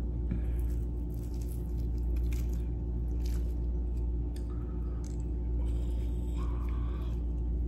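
Soft eating and food-handling sounds: chewing and the rustle and tearing of fresh cabbage leaves pulled apart by hand, with a few faint clicks. Under them runs a steady low hum.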